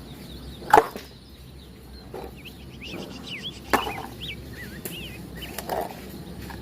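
A few sharp knocks of plastic toys being handled and dropped into a basket, the loudest about a second in and near the middle. Birds chirp in quick high notes through the middle.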